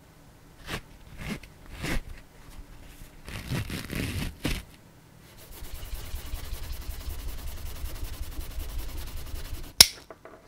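Nylon fabric and webbing of a hip belt scraping and rustling in short, irregular strokes. Then a rapid, even rasp runs for about four seconds, and near the end comes one sharp click as the plastic side-release buckle snaps shut.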